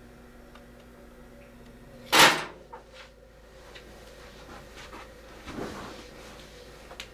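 A door shutting with one sharp bang about two seconds in, then a few light steps and a soft thump of someone dropping onto couch cushions at about five and a half seconds.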